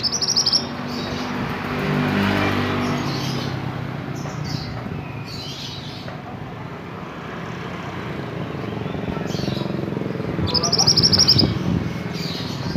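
Mantenan songbird calling in short, rapid high trills and chirps, loudest at the very start and again about eleven seconds in. A low hum, like a passing vehicle, swells underneath a couple of seconds in.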